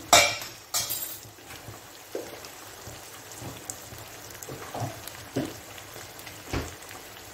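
Hot oil sizzling and crackling in a frying pan of mutton pieces with freshly added garlic paste. A loud sharp burst comes right at the start and another about a second in, then a steady low hiss with scattered single pops.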